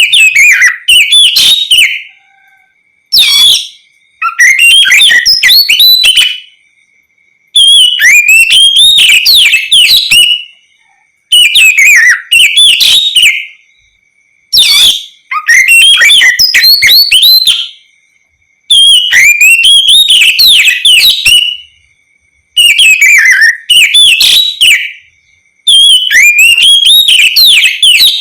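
Oriental magpie-robin (kacer) singing in the loud, open 'ngeplong' style. It gives about ten phrases of rapid whistled notes that rise and fall, each one to three seconds long, with short pauses between them. A faint steady high tone sits under the pauses.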